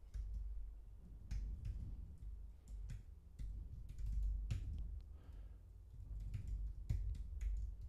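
Typing on a computer keyboard: irregular keystrokes in quick runs, broken by short pauses.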